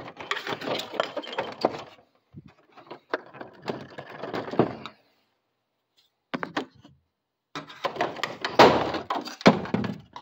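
Hard plastic clattering, knocking and snapping in several bursts as the lower clip panel of a mini-split indoor head is worked loose from its plastic locking clips. The loudest knock comes a little past eight seconds in.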